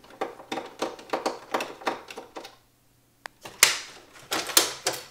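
Irregular clicks, taps and rattles of a screwdriver and small metal and plastic parts as the tape transport block of a Technics RS-DC10 Digital Compact Cassette deck is unscrewed and worked loose from its chassis. The sharpest clicks come after a short quiet gap past the middle.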